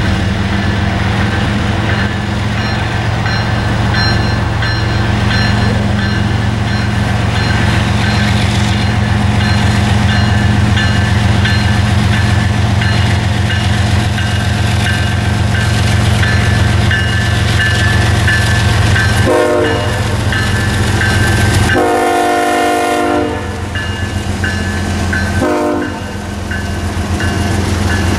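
Canadian Pacific GE diesel locomotives passing with a steady, loud engine drone as they haul a double-stack container train. Over the last third the locomotive horn sounds three times: short, long, then short.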